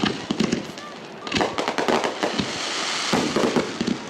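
Aerial fireworks going off: a rapid, irregular series of bangs and crackles from bursting shells.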